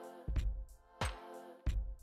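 Instrumental background music with a steady drum beat, a low kick hit about every two-thirds of a second, over held chords.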